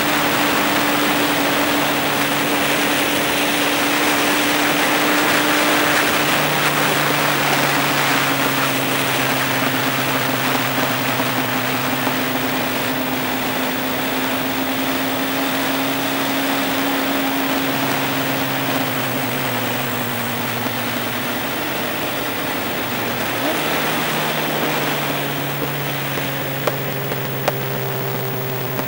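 Motorcycle engine running steadily at road speed under a heavy rush of wind noise; the engine note sinks slowly over the first twenty seconds, then picks up again as the bike leans into the bends near the end.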